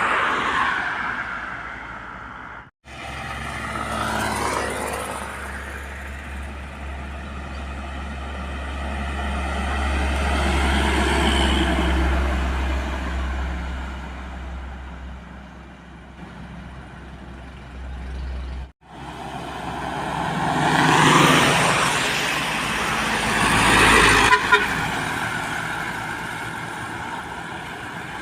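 Heavy trucks passing on a highway, their engines and tyres swelling and fading, with horns sounding as they go by. The sound cuts off abruptly twice, about 3 and 19 seconds in, between passes.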